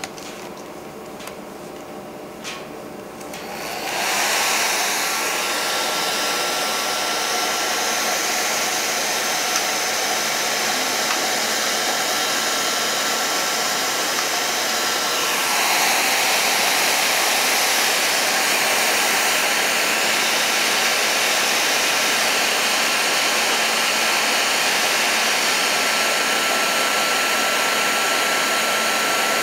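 Hand-held hair dryer starting up about four seconds in, after a few light clicks, then running steadily with a rush of air and a thin whine, blowing hot air onto a frozen liquid-nitrogen transfer line to thaw it. About halfway through, the rush grows louder and brighter.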